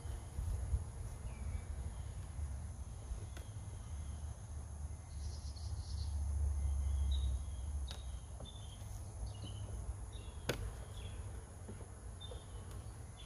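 Outdoor ambience: a low rumble that swells for a couple of seconds in the middle, short high chirps repeating through the second half over a steady thin high drone of insects, and a few sharp clicks, the loudest about two-thirds of the way in.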